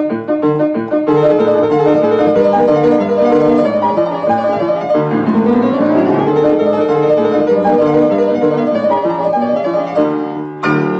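Piano music on a keyboard: many overlapping notes held at once, thickening about a second in, with rising and falling sweeps of notes about halfway through.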